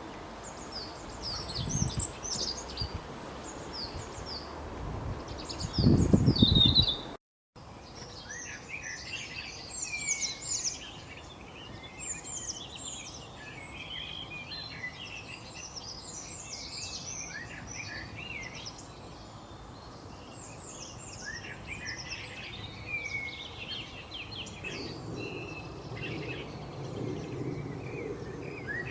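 Many small birds chirping and singing at once, a busy chorus of quick high chirps and short whistled glides. A low rumbling noise swells under the birds in the first several seconds and is loudest about six seconds in. The sound cuts out for a moment just after that, and the chorus then carries on denser.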